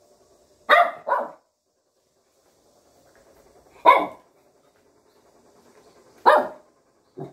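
Small shaggy dog barking up at its owner in short demanding barks: a quick double bark, then single barks spaced a couple of seconds apart, and a short softer one at the end, as if urging "hurry, hurry".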